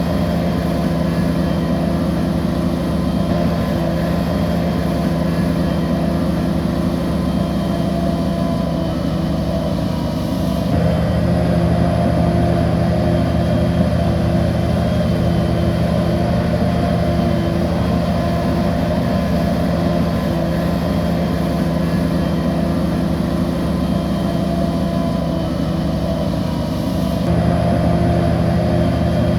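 Bulldozer's heavy diesel engine running steadily. Its sound changes abruptly about ten seconds in and again near the end.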